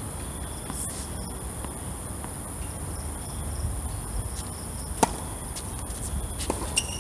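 A tennis racket striking the ball on a serve: one sharp crack about five seconds in, with a couple of fainter knocks near the end. Under it runs a steady high-pitched whine.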